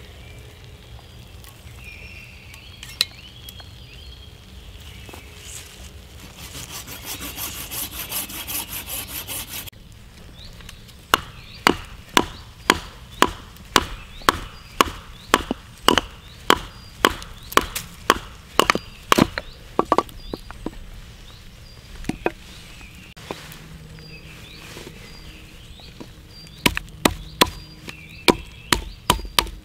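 Small hatchet splitting a short length of branch on a wooden stump, giving a run of sharp wooden knocks about two a second from about eleven seconds in. The knocks pause and start again near the end. A few seconds of rustling noise come before the knocks.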